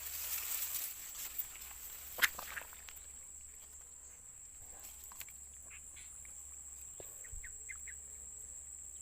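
Rustling and footsteps through grass, with a sharp click a little over two seconds in, then quieter. A steady high insect drone runs underneath, with a few short faint chirps near the end.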